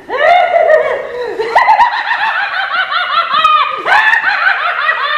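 Psycho Attack Clown puppet's sound track playing a loud, high-pitched maniacal clown cackle, a fast run of laugh syllables with a short break a little before the end.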